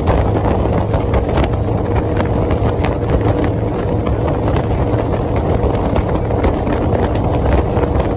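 Wind buffeting the microphone in steady gusts over the constant drone of motorcycles riding at highway speed.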